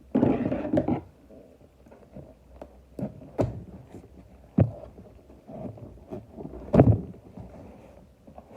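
Handling of a parcel being unboxed: a loud burst of rustling packaging in the first second, then quieter rustling broken by a few sharp knocks and taps, the loudest about seven seconds in.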